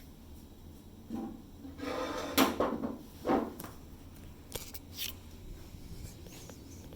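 Objects being handled on a worktable: a few knocks and scrapes, loudest in a cluster between about two and a half and three and a half seconds in, then two light clicks around five seconds.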